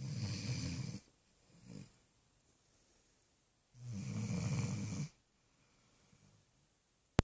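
Sleeping puppy snoring: two long snores about three seconds apart, each a little over a second, with a short weaker breath after the first. A single sharp click comes right at the end.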